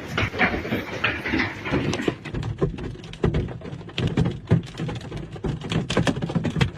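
Hailstones striking hard surfaces: a rapid, irregular clatter of sharp knocks, thickening about two seconds in.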